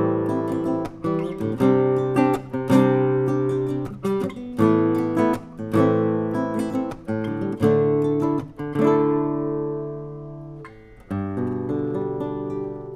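Background music of strummed acoustic guitar chords, each chord ringing out and decaying, with a brief lull about ten seconds in.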